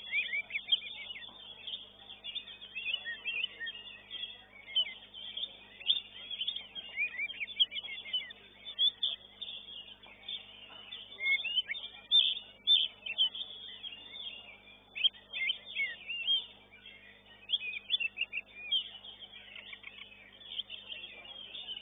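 Oriental magpie-robins (kacer) singing at a bird-song contest: a dense, unbroken stream of short chirps, trills and whistling notes, with many quick peaks.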